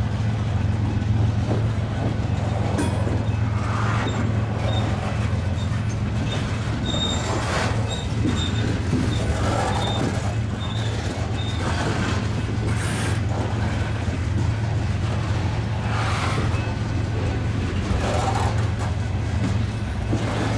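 Covered hopper cars of a freight grain train rolling past: a steady low rumble of steel wheels on rail, with scattered clacks and a few brief faint wheel squeals in the first half.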